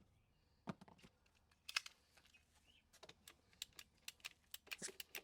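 Faint clicking of a hand pipe cutter being worked on the pond's plastic pump pipes: a few scattered clicks, then a quicker run of clicks from about three seconds in.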